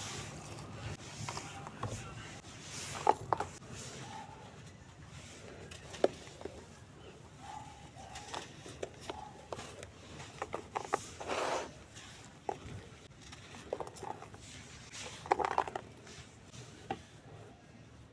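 Lumps of grainy cement sand being crushed and crumbled: irregular crackles, crunches and sharp snaps, the loudest about 3, 6 and 15 s in.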